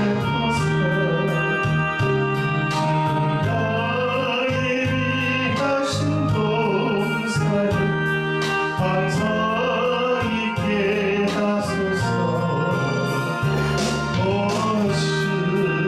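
Gospel song sung by a voice over sustained electronic organ chords, with a steady percussion beat.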